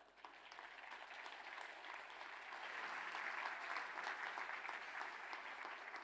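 Audience applauding, swelling over the first two or three seconds and then holding.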